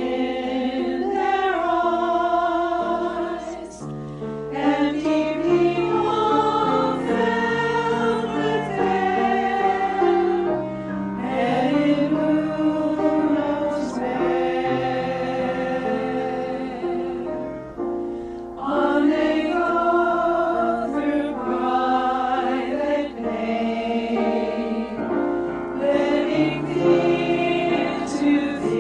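A choir singing a sacred piece in several parts, in long held phrases with short breaths between them.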